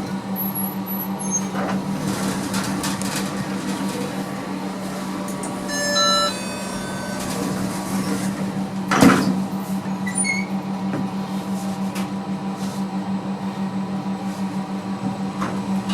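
Ride in a ThyssenKrupp machine-room-less lift: a steady pulsing hum throughout, a brief cluster of electronic tones about six seconds in, and a single thump about nine seconds in.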